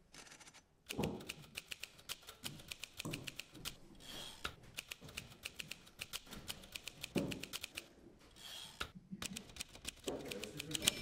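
Typewriter keys clacking in quick runs of rapid strikes. Every second or two a heavier, duller thump breaks the runs.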